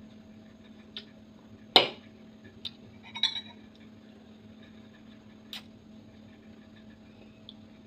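Tableware sounds of eating: a loud knock about two seconds in, then a ringing clink of a metal spoon against a ceramic bowl about a second later, with a few lighter taps scattered after, over a faint steady hum.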